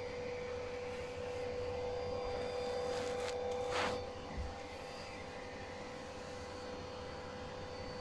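Steady electrical hum with a constant mid-pitched whine, from the powered tube amplifier setup before any music plays. A brief rushing noise and a small click come about four seconds in, after which it is slightly quieter.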